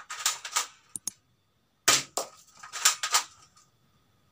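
Spring-action airsoft Beretta M12 replica (Dongying M2013, ABS plastic) being cocked by hand and fired shot by shot. It sounds as groups of sharp plastic clacks and snaps about once a second, with short quiet gaps between.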